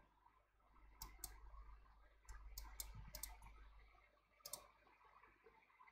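Faint, scattered computer mouse clicks, a few single ones with a small cluster near the middle.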